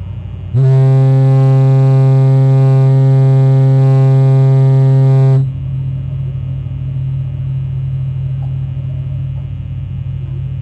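Foghorn sounding one long, low, steady blast of about five seconds, starting about half a second in and cutting off sharply.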